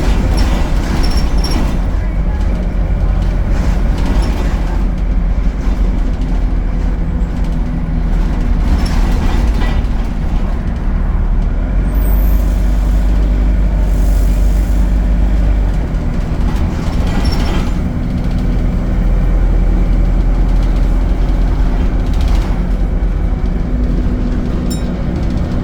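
ADL Enviro 200 bus heard from on board: its diesel engine and Allison automatic gearbox run steadily under way, the engine note shifting in pitch now and then, with a few short rattles.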